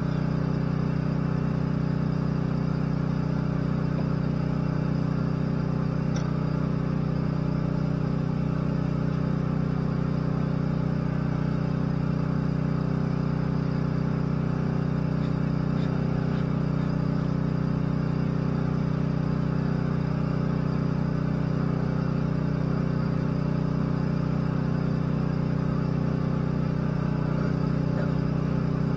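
Mini excavator's engine running steadily at a constant speed, a level even hum with no change in pitch.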